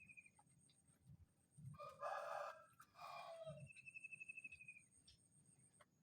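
A rooster crowing faintly, one crow of about two seconds in two parts, starting about two seconds in. A thin, high, wavering whistle follows right after it.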